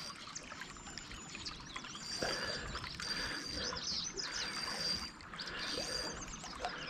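River water trickling and lapping against the hull of a drift boat, a low steady wash.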